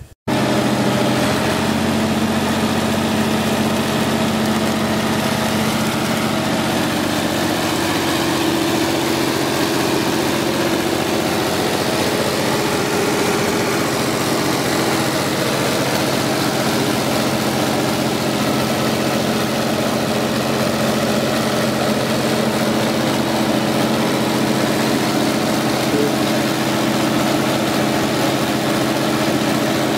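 The 120 hp Perkins 5.8-litre six-cylinder diesel engine of a homemade tracked bog ditcher running steadily at an even pitch.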